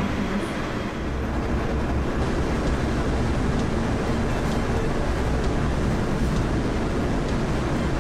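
Yurikamome driverless rubber-tyred automated guideway train pulling away from a station along its elevated concrete guideway, heard from inside the front car: a steady rumble of tyres and running gear.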